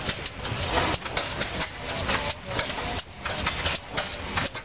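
Antique stationary flywheel gas engines running, with a regular beat about every two-thirds of a second.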